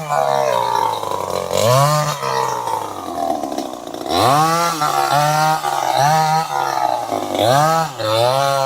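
Two-stroke chainsaw engine being revved: the throttle is blipped again and again, the engine note rising sharply and settling back each time, with a slower sag in pitch a few seconds in.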